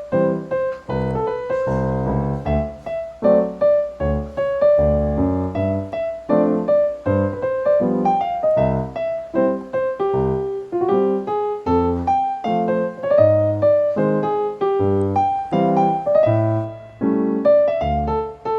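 Background piano music: a gentle melody of struck notes over low chords.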